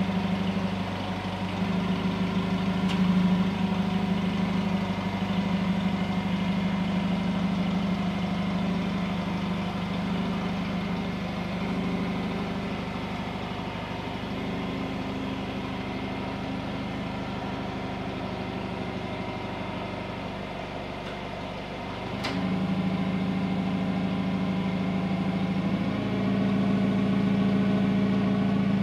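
Toyota forklift engine running steadily, its level and pitch shifting a few times as it works. A single sharp knock about three-quarters of the way through, after which the engine runs louder.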